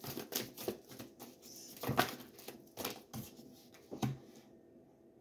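A deck of tarot cards being shuffled and handled: quick, irregular soft clicks and flicks of card on card, with a few louder taps about two, three and four seconds in.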